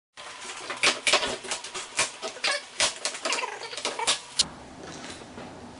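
Handling noise of hands working over an oscilloscope and its cleaning-wipe sachets: a quick run of sharp crinkles and clicks for about four seconds, after which only faint room noise remains.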